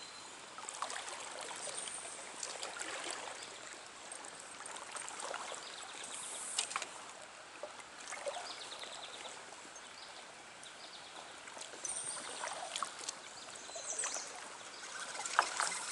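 Water of a small trout stream running and trickling steadily, with a few short, sharp noises on top.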